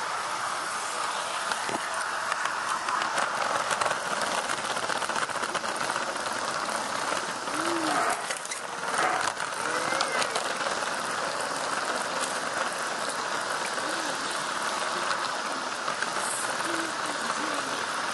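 G-scale model train running along its track, heard from the train itself: a steady rattling hiss with scattered small clicks from the wheels and rails. Faint voices come in around the middle and near the end.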